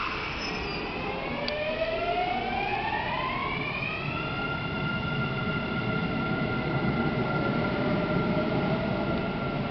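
Kintetsu Series 21 electric train pulling out and accelerating: its VVVF inverter motor whine rises in pitch over the first few seconds, then levels off into a steady tone over the rumble of the wheels on the rails.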